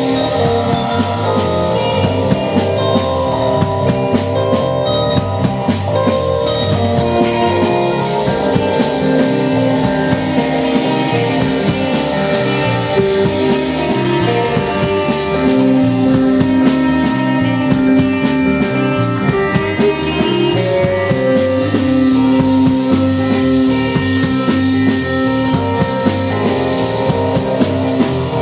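Live rock band playing: drum kit, electric guitar and keyboard, with long held notes over a busy beat.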